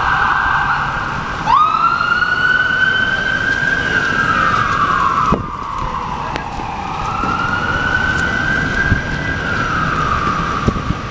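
Emergency vehicle siren on a city street: a fast warbling yelp that switches, about a second and a half in, to a slow wail rising and falling in pitch twice. Traffic and wet-road noise run underneath, and there is a single sharp knock about midway.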